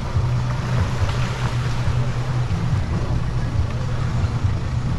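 A motorboat engine running steadily with a low, even drone.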